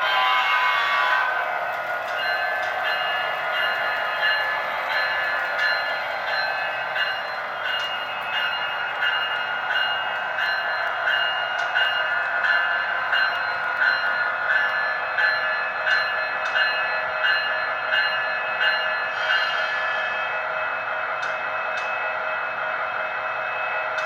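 HO-scale model passenger train running on sectional track: a steady rolling and motor noise, with thin ringing tones that pulse a little more than once a second. A louder tone fades out in the first second or two.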